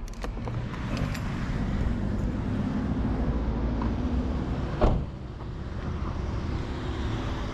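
A steady low vehicle rumble, with a single sharp knock about five seconds in.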